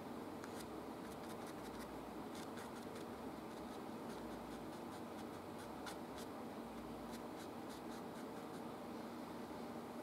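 Paintbrush stroking oil paint onto canvas: a string of short, light scratchy ticks over a steady low hum.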